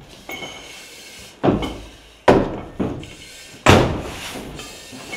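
Four heavy thuds and knocks in quick succession as firefighters in full turnout gear and SCBA air packs crawl through a doorway, their bodies, gear and air bottles hitting the floor, door and frame.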